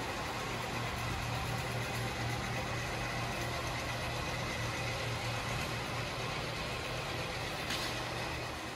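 Steady low mechanical hum with an even background hiss and no distinct events.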